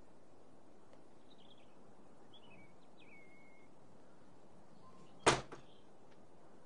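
Door shutting with one sharp knock about five seconds in, followed by a small second tap of the latch. Faint bird chirps come earlier over a steady background hiss.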